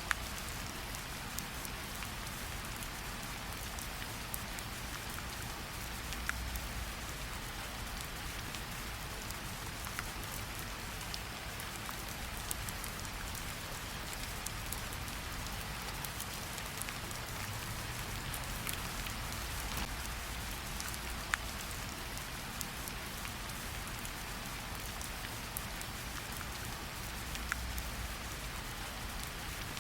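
Steady rain falling, an even hiss with scattered sharp drips and taps of individual drops.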